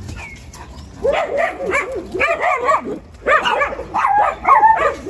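Dogs yipping and whining in a run of short, high, overlapping calls that start about a second in.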